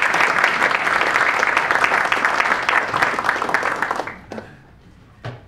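Audience applauding a speaker's introduction, a dense clapping that dies away about four seconds in. A single short bump follows near the end.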